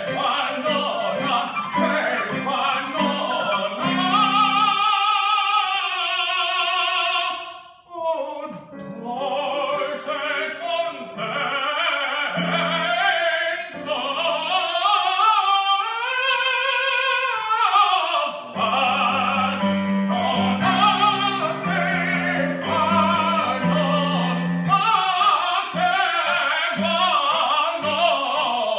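A man singing an opera aria with electric-keyboard piano accompaniment. He holds a long note a few seconds in and, about halfway through, sings a phrase that climbs and falls back.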